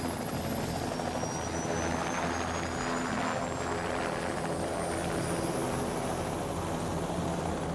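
Helicopter in flight: steady rotor and engine noise, with a thin high whine slowly rising in pitch.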